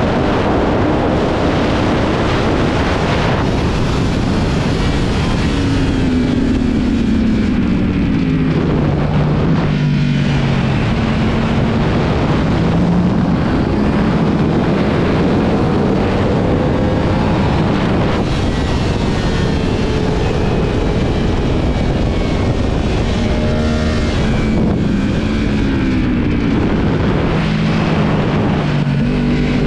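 2022 Yamaha R1's inline-four sportbike engine at speed on track, its pitch falling twice as it slows for corners and climbing again as it accelerates out, over a heavy rush of wind noise on the onboard microphone.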